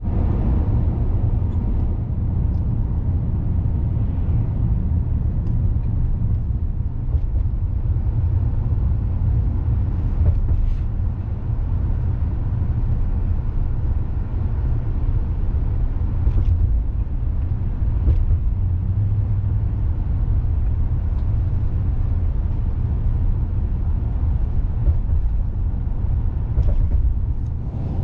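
A steady, heavy low rumble with a few faint clicks over it.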